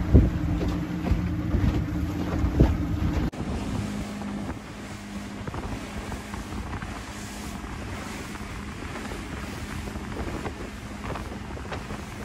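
A boat's engine running steadily while under way on open water, with a couple of thumps in the first few seconds. About three seconds in, the sound cuts to mostly wind buffeting the microphone and water rushing past the hull, the engine hum fainter beneath.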